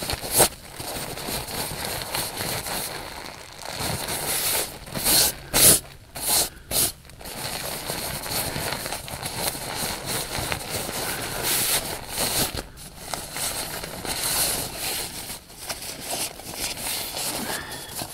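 Nylon inflatable sleeping pad being rolled up tightly by hand to press the air out: steady fabric rustling and crinkling, with a few louder, sharper rustles about five to seven seconds in.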